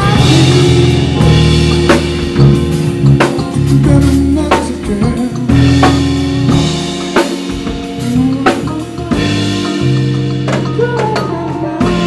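A live band playing: electric bass holding long low notes, a drum kit keeping a steady beat, and sustained chords from a Roland VR-09 keyboard.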